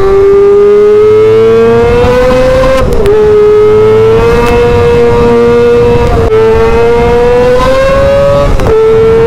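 Kawasaki ZX25R 250 cc inline-four motorcycle engine running at very high revs through an SC Project titanium exhaust. The pitch climbs steadily and breaks briefly three times, about every three seconds, as the bike shifts up through the gears under hard acceleration.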